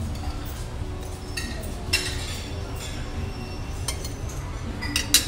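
Metal serving tongs clinking against ceramic plates a few times, the sharpest clinks near the end, over a steady low background hum.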